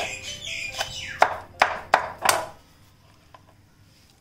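Kitchen knife chopping tomatoes on a wooden cutting board: about five sharp knocks in the first two and a half seconds, then the chopping stops.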